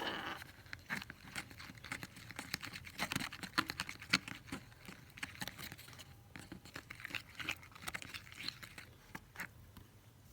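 A small spoon stirring glue-based slime mix in a container as the activator drops go in: quick, irregular clicks and sticky taps, busiest about three to four seconds in and thinning toward the end.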